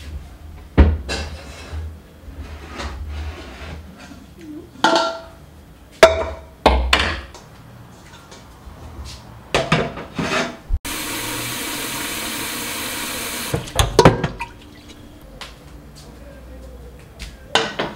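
Kitchen clatter of a steel cooking pot and its glass lid being handled, with several sharp knocks, and a tap running for about three seconds midway, filling the pot with water.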